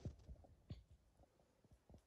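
Near silence with a few faint low thumps and soft pops, three in all.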